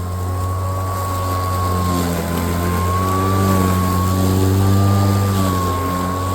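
Greenworks Pro cordless electric lawnmower running through tall, overgrown grass: a steady hum with a thin motor whine on top that wavers slightly in pitch as the blade meets the thicker grass, growing a little louder in the middle.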